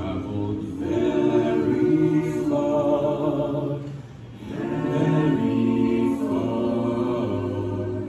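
An a cappella vocal group singing sustained chords in close harmony, in two long swelling phrases, the second beginning about halfway through.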